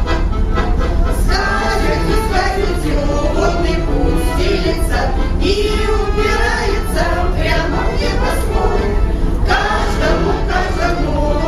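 A group of amateur singers singing a song together in chorus.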